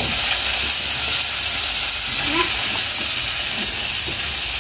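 Garlic and dried anchovies frying in oil in a pot on a portable gas stove: a steady, loud sizzle.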